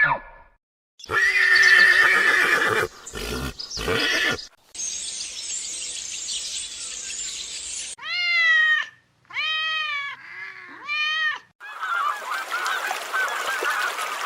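A string of short, different animal sounds cut one after another. It runs from a pitched call and a few short bursts to a steady hissing stretch, then four arching honk-like calls, and near the end a noisy stretch of many overlapping calls.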